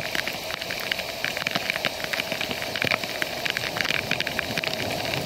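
Heavy rain falling steadily, with a dense patter of sharp drop ticks striking close by.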